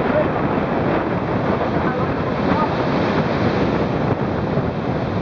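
Heavy storm surf breaking and washing up the beach, a steady rush of water, with strong wind buffeting the microphone.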